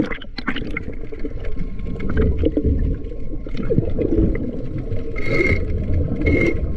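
Underwater sound beneath a fishing boat's hull while a diver scrapes off barnacles: a muffled rumble with gurgling, then from about five seconds in short rasping scrapes roughly once a second.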